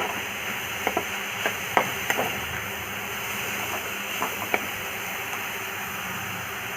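Chopped mixed vegetables sizzling gently as they sauté in oil in a kadai. A spatula clacks and scrapes against the pan about ten times in the first four or five seconds as the vegetables are stirred, then only the steady sizzle remains.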